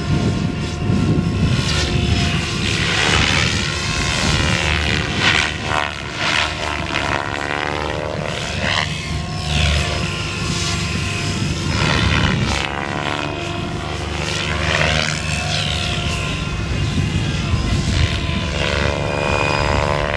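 SAB Goblin 630 electric RC helicopter in 3D aerobatic flight: the motor and rotor whine rises and falls in pitch again and again as it works through the manoeuvres.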